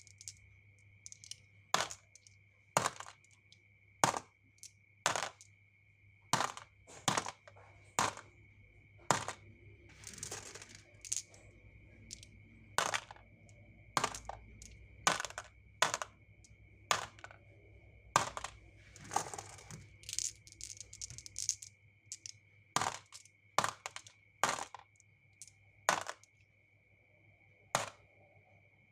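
Marbles and toy cars clacking down a marble run track: sharp separate clicks about once a second, with two short rolling rattles along the way.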